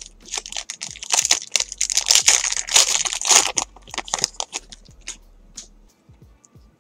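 Foil wrapper of a 2014 Elite Extra Edition baseball card pack crinkling and tearing as it is ripped open. The crackling is densest through the first few seconds and thins to a few crackles before dying away.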